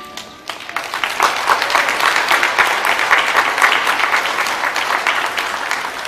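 An audience applauding, starting about half a second in as music stops and easing off slightly near the end.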